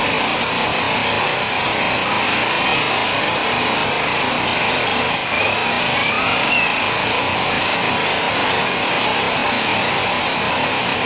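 Heavy rain falling on a corrugated metal roof sheet, with water pouring off its edges: a loud, steady hiss.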